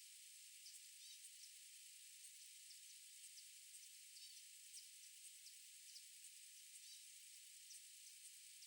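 Near silence: quiet outdoor ambience with a faint, even high hiss and very faint short high-pitched chirps or ticks about twice a second.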